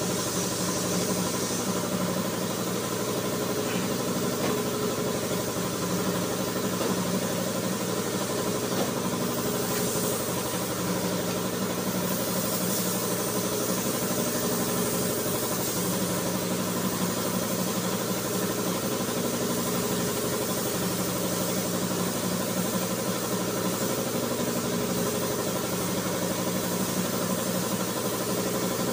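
Steady mechanical drone of a running motor, with spells of spray-gun hiss near the start and again a third of the way in as primer black is sprayed.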